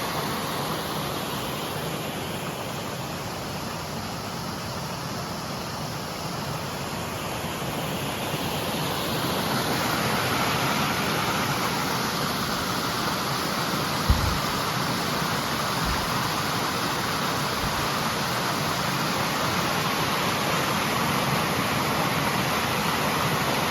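Waterfall on a mountain creek: a steady rush of falling water that grows louder about a third of the way in, with one brief low thump around the middle.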